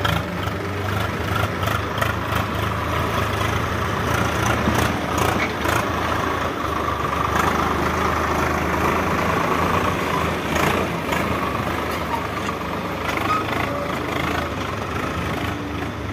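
Diesel farm tractor engine running steadily, with a few scattered knocks over it.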